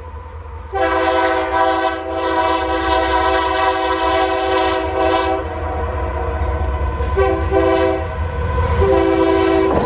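Approaching diesel freight locomotive sounding its air horn: one long blast of about five seconds starting about a second in, then several shorter blasts near the end, over a steady low rumble.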